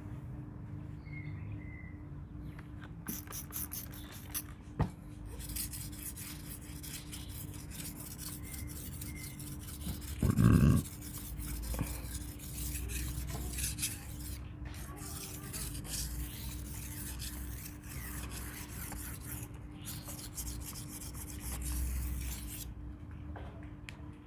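Leaf-spring steel knife blade stroked back and forth across a Payakumbuh natural whetstone, a steady run of rasping sharpening strokes. A single loud thump comes about ten seconds in.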